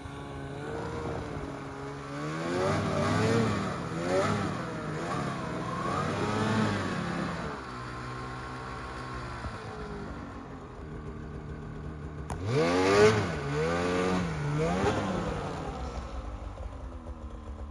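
Snowmobile engine revved up and down in repeated throttle blips as the sled spins out on a rock while stuck, with a sharp knock about twelve seconds in followed by a hard rev.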